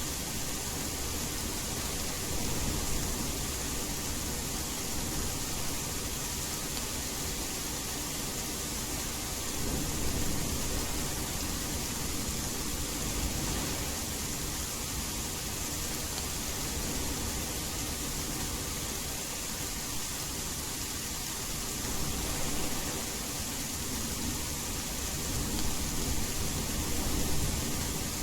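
Steady rain hiss blended with white noise, with low distant thunder rumbles swelling up a few times, about ten seconds in, a little past twenty seconds, and again near the end.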